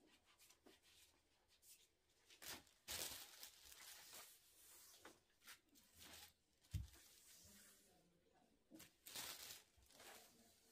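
Faint rubbing and swishing of a long thin rolling pin working a sheet of baklava dough over a floured wooden board, with a brief soft knock about seven seconds in.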